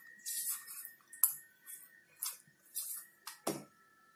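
Spoon spreading thick green chutney over a chapati on an iron tawa: a run of short scraping strokes about every half second, with a sharper knock about three and a half seconds in.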